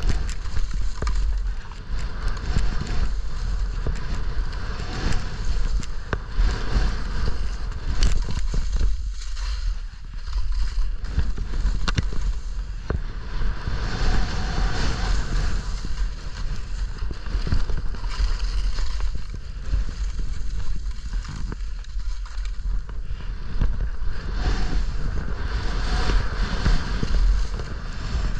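Skis scraping and chattering over tracked, uneven snow during a fast downhill run, a continuous rough hiss broken by many small knocks. Wind buffets the camera microphone as a steady low rumble underneath.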